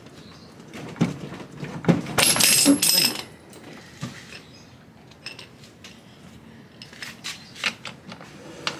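Steel socket wrench clinking and clattering on the rear axle nut of a Yamaha NMAX scooter as it is fitted and worked, with a louder rattle of metal for about a second around two seconds in. The axle nut is seized too tight to come off.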